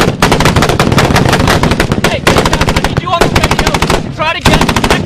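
Automatic gunfire in a close-range firefight: long strings of rapid shots with hardly a break, easing off briefly about four seconds in.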